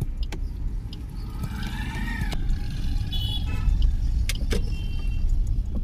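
Steady low rumble of a vehicle driving along a road, heard from on board, growing slightly louder. A few light clicks and short high-pitched tones sound over it.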